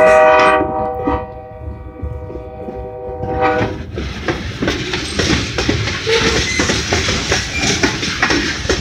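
Horn of the lead GP38 diesel locomotive held in one long chord that is loudest at the start and cuts off about three and a half seconds in, followed by the steady rumble and wheel clatter of freight cars rolling past close by.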